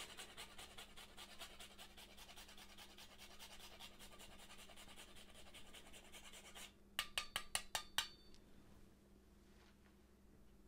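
Whole nutmeg grated on a fine rasp grater: a faint, quick, even run of scraping strokes that stops about seven seconds in. A quick series of about six sharp, ringing taps follows.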